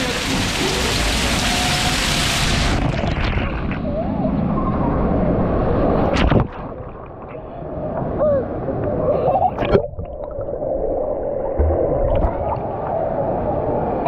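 Rushing water of a pool water slide, turning muffled about three seconds in, then water sloshing and splashing in the pool with a child's brief cries.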